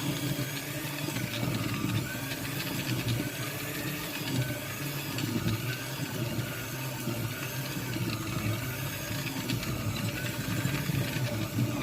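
Electric mixer running steadily at low speed, beating flour into a cake batter of egg yolks, sugar and oil.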